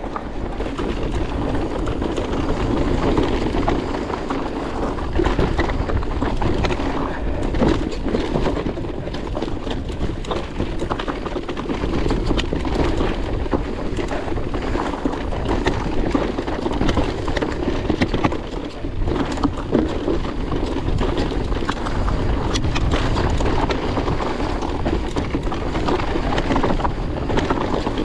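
Mountain bike rolling fast down a dry, rocky dirt trail: continuous tyre rumble over loose stones with frequent sharp clicks and rattles from the bike and the gravel.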